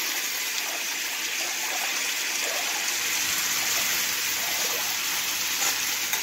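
Tomatoes, onions and mint sautéing in oil in a stainless steel pan: a steady, even sizzling hiss.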